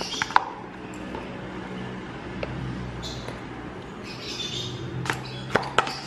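Plastic ice cream tub being opened and handled, a spoon scraping out vanilla ice cream and setting it on a ceramic plate: a few sharp clicks near the start and again near the end, soft scraping in between. A low steady hum runs underneath.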